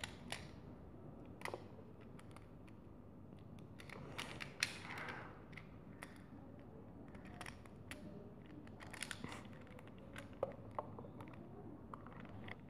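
Plastic magnetic building tiles being handled and snapped together: scattered faint clicks and taps. The sharpest click comes a little under five seconds in.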